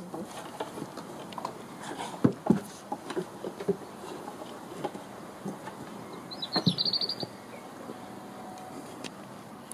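White Swiss Shepherd puppies scuffling and playing on grass, with scattered soft knocks and rustles. A brief burst of high chirping comes about two-thirds of the way through.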